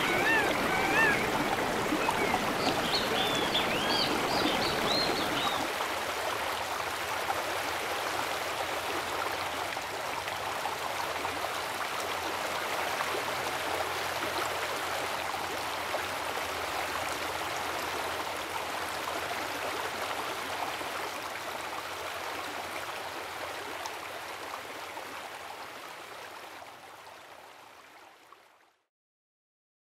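Flowing river water, a steady rushing that fades out near the end. Briefly at the start a voice sounds over it, and a few high chirps follow a few seconds in.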